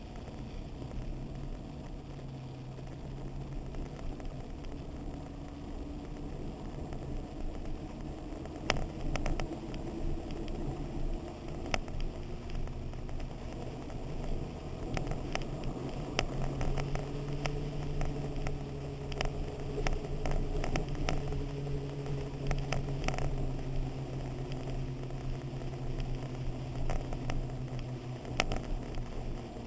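Motorcycle engine running steadily while riding, heard from on the bike, with scattered sharp clicks and knocks from about eight seconds in.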